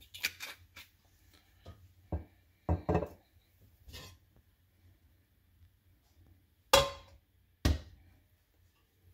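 A stainless steel wok clunking and knocking on a glass cooktop as it is tilted and swirled to spread cooking oil. Scattered light knocks, then two loud knocks about a second apart near the end.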